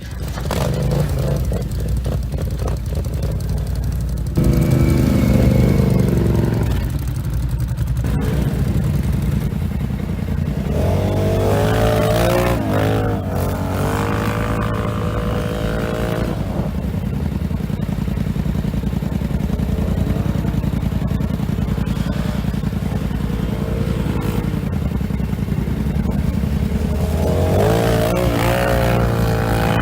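ATV engines running under a steady low engine pulse, revving up and down several times: a few seconds in, through the middle, and again near the end.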